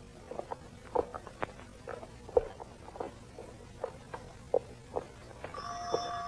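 Light, irregular taps and knocks, roughly two a second. Near the end an electric doorbell starts ringing with a steady buzzing tone that carries on.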